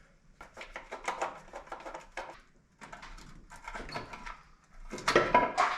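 Irregular scraping, rubbing and clattering of hands working a rubber hose off an engine's timing cover, in bursts, loudest about five seconds in.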